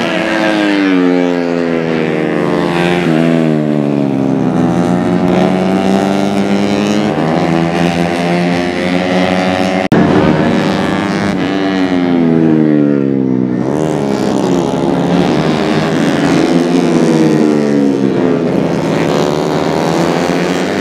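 Honda Astrea four-stroke racing motorcycles revving hard through a bend, the engine pitch rising and falling repeatedly as the bikes pass and shift, with more than one engine heard at once. The sound breaks off briefly about halfway through.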